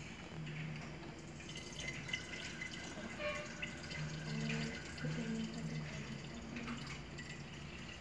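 Water trickling and dripping from a plastic bottle into a flooded lead-acid battery cell through its filler opening, topping up the electrolyte with demineralised water.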